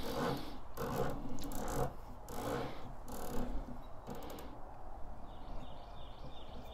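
Elevation turret of a Discovery Optics 4.5-18x44 rifle scope being turned by hand, clicking in short runs through about the first four seconds, then going quieter.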